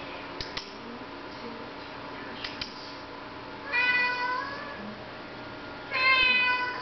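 Domestic cat meowing twice, each meow about a second long: a cat demanding to be let outside.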